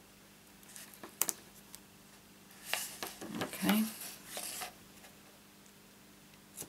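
Hands handling cardstock and a roll of double-sided tape on a craft mat: a few light clicks about a second in, then a couple of seconds of rustling and sliding paper as the card is moved, and a short snip of scissors near the end.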